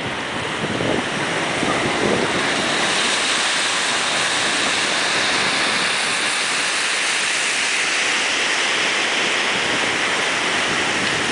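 Heavy ocean surf breaking and washing in as a steady hiss, growing a little louder about two seconds in, with wind on the microphone.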